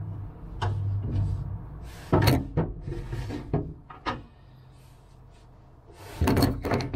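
Handling noise inside a wooden aircraft cockpit: scattered knocks and clatters as the camera and measuring tools are moved about. A short quiet stretch comes about five seconds in, then a quick cluster of knocks near the end.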